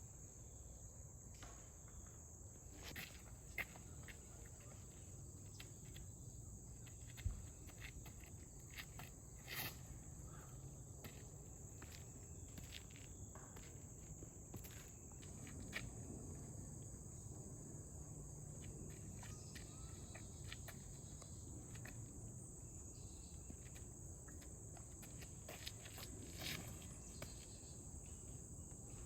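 Steady high-pitched insect chorus of crickets, with faint scattered clicks and a low knock about seven seconds in.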